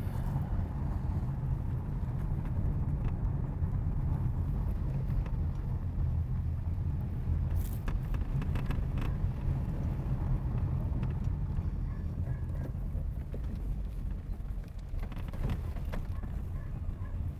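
Car driving at a steady pace: a continuous low engine and road rumble with no rise in pitch, broken by a few brief clicks.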